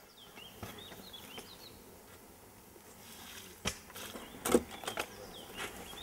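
Outdoor ambience of birds chirping in short calls over a faint background hum of insects, with a few sharp knocks from about three and a half seconds in, the loudest about four and a half seconds in.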